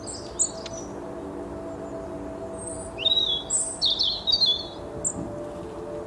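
Small songbirds chirping: a few quick high chirps at the start, then a louder run of song notes about three seconds in and a few more near the end. Under them runs a steady, soft drone of ambient music.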